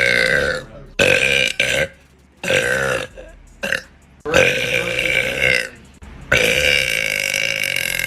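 A woman burping loudly over and over: a quick run of short belches, then two long drawn-out ones, the last lasting more than two seconds.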